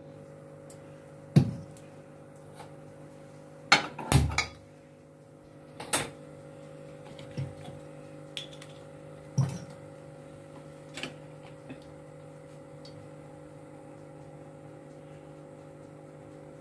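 Metal kadhai (wok) being handled on a gas stove: scattered clanks and knocks of pan on stove, loudest about a second and a half in and around four seconds in, then fewer and fainter after about eleven seconds, over a steady low hum.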